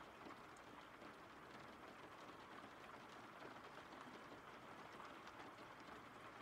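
Faint, steady rain: an even hiss with light, scattered drop ticks.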